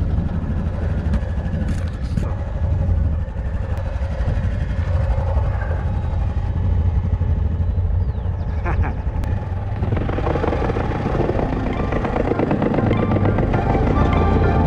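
ATV engine running under way, heard through a helmet-mounted GoPro. Music comes in about ten seconds in.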